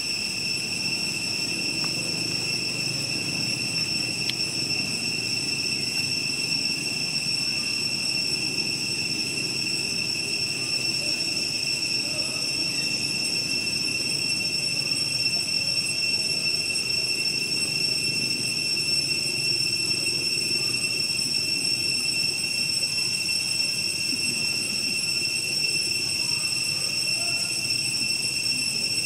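Continuous high-pitched insect chorus holding one steady pitch, over a low, even rumble.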